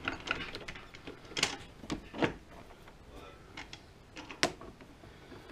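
Scattered light metallic clicks and knocks, with a few sharper clanks, from the lathe's chuck and chuck key being handled while the lathe is stopped.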